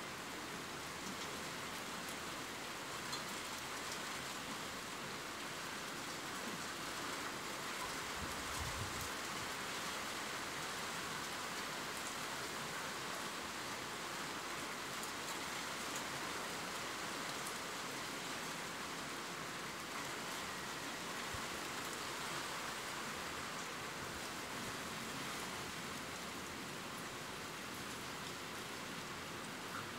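Steady rain falling: an even hiss with faint scattered ticks of individual drops.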